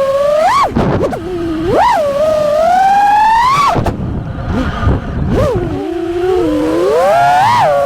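5-inch FPV freestyle quadcopter's brushless motors and three-blade props whining, the pitch swooping up and down sharply over and over as the throttle is punched and chopped through manoeuvres, over a rough rush of air.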